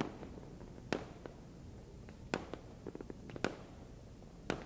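Small, sharp pops as a fireworks sound effect, about five of them spaced roughly a second apart, with a few fainter ticks between.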